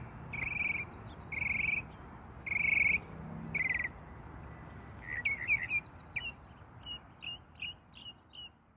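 Birds calling: five separate calls of about half a second each in the first four seconds, then a quicker run of short chirps, over a steady background hiss.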